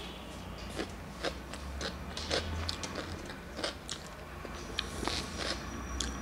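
A person eating with her fingers: wet mouth smacks, chewing and finger-licking in irregular short clicks, over a steady low hum.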